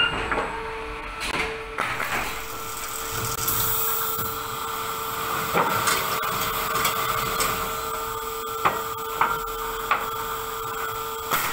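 Pallet nailing line machinery running: a steady motor hum with a constant whine, broken by a few sharp mechanical clicks and knocks.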